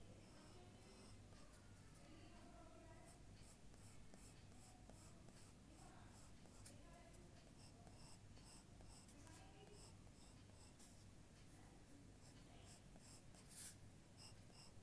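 Faint scratching of short drawing strokes on paper, repeated about two or three times a second, with one louder stroke near the end, over a steady low hum.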